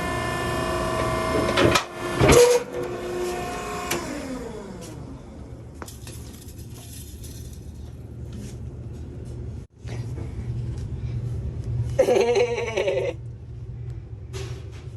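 Maren cardboard baler's electric motor and hydraulic pump running with a steady whine, two sharp knocks about two seconds in, then the motor winding down in falling pitch over the next couple of seconds. A low hum remains afterwards.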